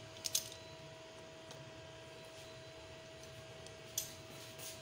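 A metal knife clicking against the pizza dish as the pizza is cut: two quick clicks just after the start and one more about four seconds in, over a faint steady hum.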